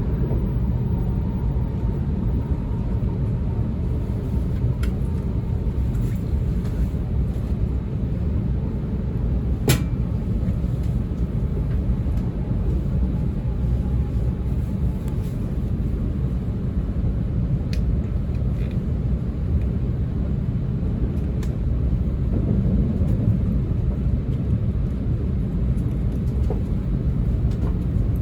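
Low, steady rumble of an E2 series Shinkansen car running, heard from inside the passenger cabin, with a single sharp click about ten seconds in.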